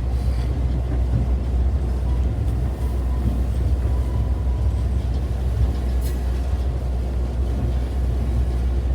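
Blue Ridge Scenic Railway passenger train rolling along the track: a loud, steady rumble of the cars, heard from on board.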